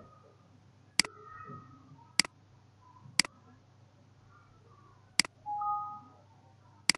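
Computer mouse button clicked five times, single sharp clicks at uneven gaps of one to two seconds. A brief two-note tone sounds just after the fourth click.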